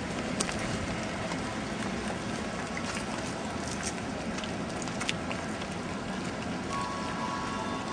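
Steady outdoor hiss of distant street traffic, with a few light clicks; a faint steady tone comes in near the end.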